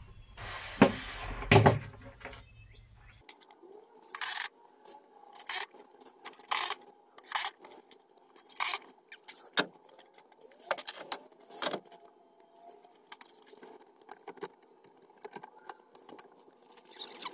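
Irregular sharp clatters and scrapes of hand work on the shed, roughly one a second, over a faint steady hum. Before them, about three seconds of louder rushing noise cuts off abruptly.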